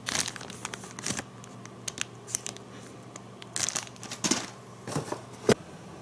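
Clear plastic bag crinkling and rustling in the hands in short, irregular bursts, with one sharp tap near the end.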